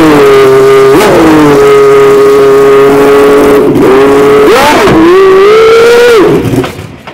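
Peugeot V10 of a three-seat Formula 1 car running at a high, steady idle, its pitch sagging and recovering twice, then rising briefly and dying away near the end: the engine stalls just after a hard start.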